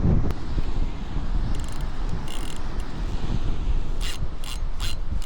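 Fishing reel being cranked to wind in the line, its gears whirring and clicking in short spells, over wind on the microphone.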